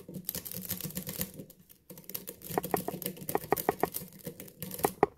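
A metal lock pick clicking and scraping against the pins of an old, patinaed pin-tumbler lock as it is worked in the keyway under tension, with a run of sharper clicks, several a second, in the second half.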